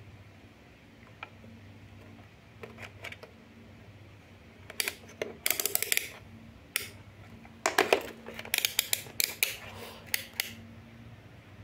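Rotary selector dial of a Winner DT-830B digital multimeter being turned by hand, clicking through its positions in quick runs of sharp plastic clicks from about halfway through, with a few handling knocks.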